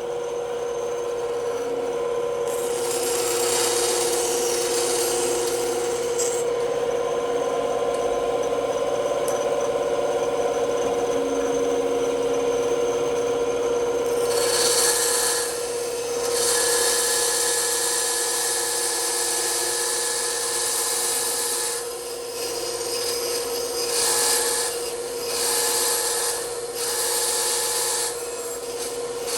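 Bandsaw running with a steady hum while its blade cuts through wood, the rasping cut noise swelling and easing as the piece is fed. Near the end the cutting comes in short spells with brief breaks.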